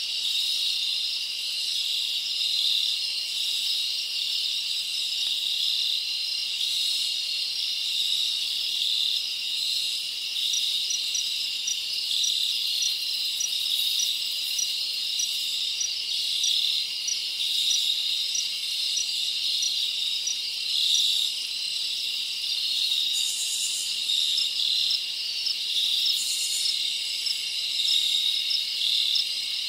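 Steady chorus of insects trilling high in pitch, continuous and unbroken. In the middle, and again near the end, a run of short, higher chirps at about two a second sits over the chorus.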